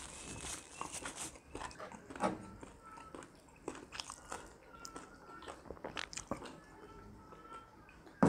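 Close-up eating sounds: biting and chewing of oven-roasted chicken wings, heard as a scatter of small wet crackles and smacks.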